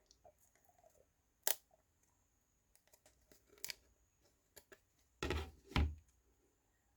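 Thin laser-cut wooden parts being handled and a small pin pressed out of its sheet: light scattered clicks and taps, one sharp click about a second and a half in, and two louder scuffs about five seconds in.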